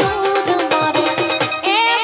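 Live Gujarati folk music: a melody with gliding, ornamented pitch over fast, steady drum beats, about four or five strokes a second.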